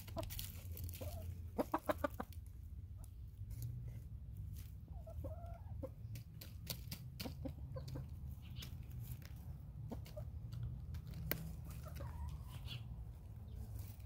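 Hens pecking at pumpkin scraps on mulch, with sharp taps throughout and a quick run of louder ones about two seconds in, and a few short clucks.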